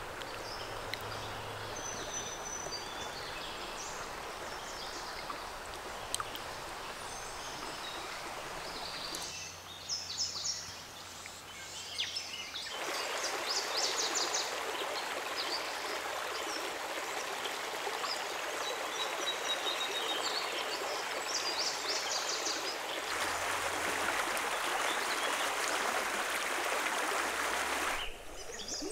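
Flowing creek water, a steady rush that shifts in loudness a few times, with small birds chirping now and then.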